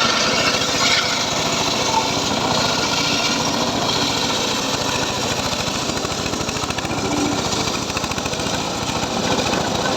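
Homemade circular saw rig running steadily on its small engine, with a rapid, even firing rhythm.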